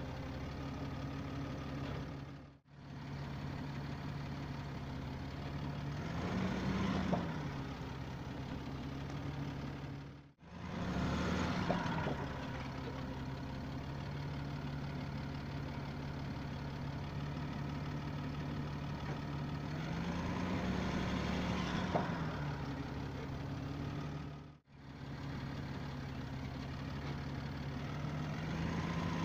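Land Rover Discovery 4's 3.0-litre V6 turbodiesel running steadily near idle, its revs rising briefly several times as throttle is given to try to drive off the slip-test rollers, with added whirring noise during each rise. The sound drops out briefly three times.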